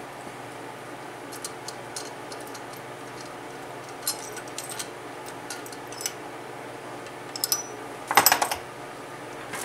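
Light metallic clicks and clinks of valve spring parts and hand tools being handled on an LS cylinder head while the new valve springs are fitted. About eight seconds in comes a louder cluster of knocks.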